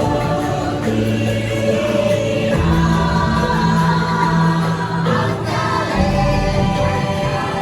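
Choral music from a dark-ride soundtrack: a choir singing long held notes over an instrumental score, the chords changing every couple of seconds.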